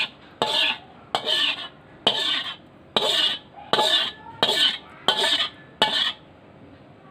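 Spatula scraping sauce out of a tilted wok into a glass dish: about nine short scrapes, a little under a second apart, that stop about six seconds in.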